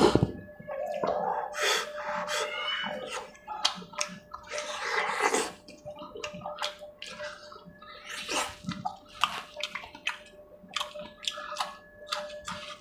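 Fingers tearing and squishing pieces of chicken in thick curry gravy on a steel plate: irregular wet squelches and smacks, with a sharp knock right at the start.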